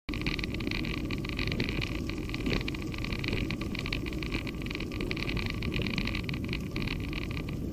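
Riding noise on a bicycle's handlebar-mounted action camera whose microphone is covered with plastic and tape: a steady rush of wind on the microphone with a low rumble, and a fine crackle of tyres rolling on a gravel track.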